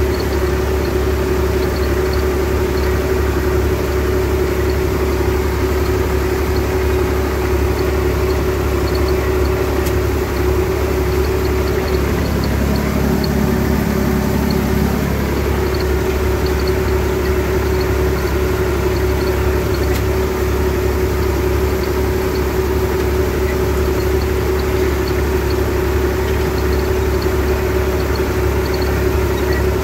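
IMT 539 tractor's three-cylinder diesel engine running steadily while the tractor spreads fertiliser across the field, heard from inside the cab. Its note shifts lower for about three seconds around twelve seconds in, then returns.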